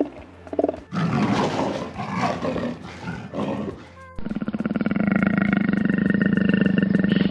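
Animal calls: a rough, noisy vocalisation, then after an abrupt change about four seconds in, a long, steady, rapidly pulsing low growl.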